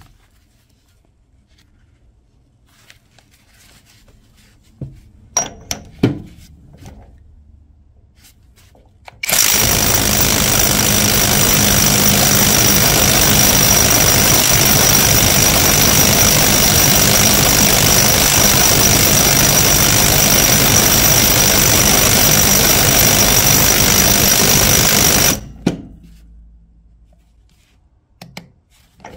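Dowox stubby cordless impact wrench, running on a Makita battery, hammering continuously on a Skidmore bolt-tension tester for about sixteen seconds, starting about nine seconds in and stopping abruptly, with a steady high whine over the rapid impacts. A few knocks and clicks come before it as the tool is set up.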